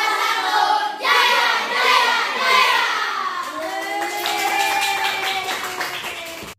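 A group of children singing together loudly. From about halfway through, hand clapping joins in, and it all cuts off suddenly at the end.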